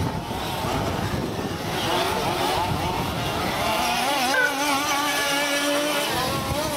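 Several 1/8-scale nitro RC buggy engines whining, their pitches rising and falling as the buggies accelerate and back off around the track.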